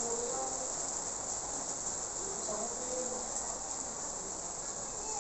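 Steady high-pitched drone of insects, with faint voices now and then.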